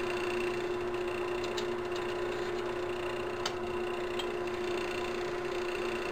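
Central Machinery lathe running with a steady hum while a drill bit held in the tailstock chuck bores the spinning stock. A few faint clicks sound over it.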